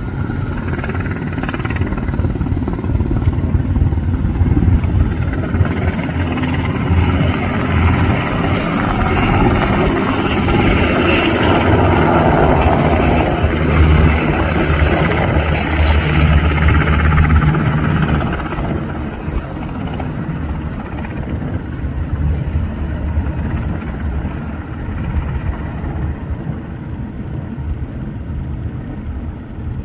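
UH-60 Black Hawk helicopter flying past with a slung load, its rotor and turbines giving a steady low beating rumble that grows louder, peaks about halfway through, then fades as it moves off.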